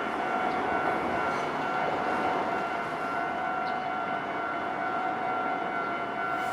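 Japanese railway level-crossing warning alarm sounding, an electronic tone at several even pitches, over steady background noise.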